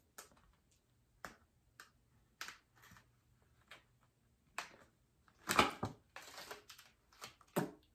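Plastic lash packaging being handled: scattered light clicks and taps, with a denser rustle about five and a half seconds in.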